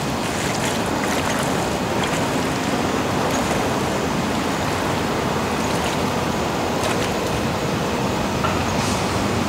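Shallow pond water sloshing around rubber waders as a person wades in, over a steady rushing background noise.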